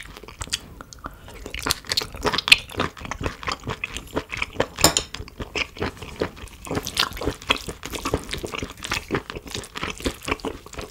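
Close-miked chewing and biting of nak-gop-sae (octopus, beef tripe and shrimp in spicy sauce): a dense run of irregular wet clicks and crunches, a few sharper ones standing out.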